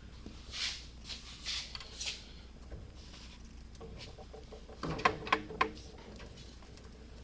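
Strap wrench being heaved on a stuck brass fitting: a few short scraping rubs in the first two seconds, then three sharp clicks with a brief metallic ring about five seconds in. The fitting does not budge.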